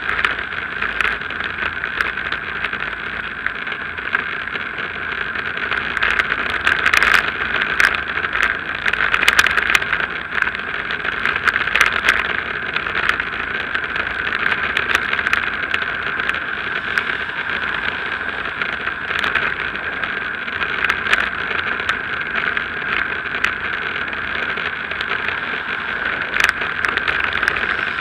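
Steady wind and road noise on a bike-mounted action camera while cycling, with frequent short clicks and knocks as the bike and camera mount jolt over the road surface.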